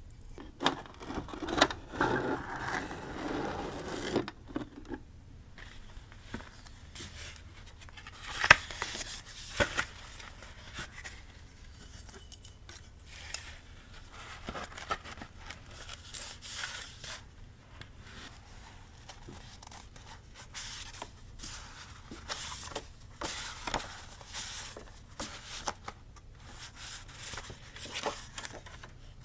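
Paper-craft handling sounds: paper and journal decorations being rustled and scraped in irregular scratchy strokes, with one sharp click about eight seconds in.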